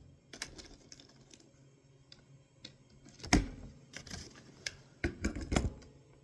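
A series of sharp mechanical clicks and clacks from handling an AP900 PCP air rifle, cocking it and loading a pellet into the breech, with a louder click about three seconds in and a quick cluster of clicks near the end.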